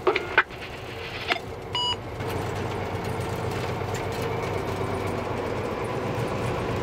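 A diesel locomotive running, heard inside its cab as a steady low drone with rumble while it moves along the track. A few sharp clicks and a short electronic beep come in the first two seconds, before the drone settles.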